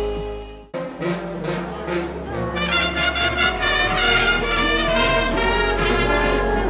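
Bersaglieri military brass band of bugles and tubas playing a march. The brass comes in after a brief drop in sound about a second in.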